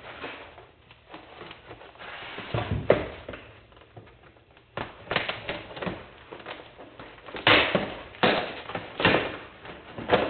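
Boxes and packaging being handled: irregular knocks and clicks with rustling, and a cluster of sharper knocks in the second half.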